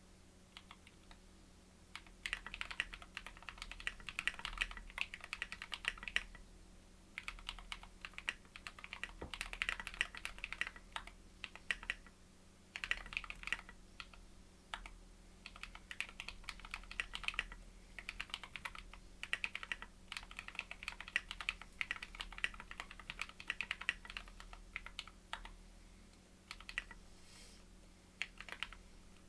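Anne Pro mechanical keyboard with lubed and filmed Holy Panda tactile switches and SA-profile keycaps being typed on, in runs of fast keystrokes broken by brief pauses.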